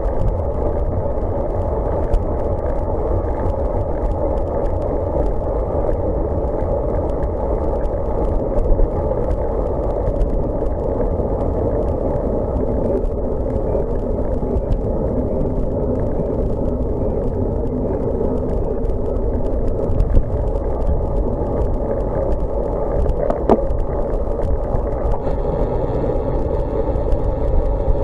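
Steady rumble of wind and road noise picked up by a bicycle-mounted camera while riding on a wet road, with a few light knocks from the bike.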